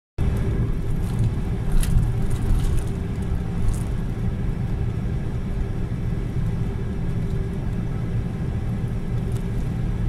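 4-tonne truck driving at highway speed, heard inside the cab: a steady low rumble of engine and road noise with a steady hum over it.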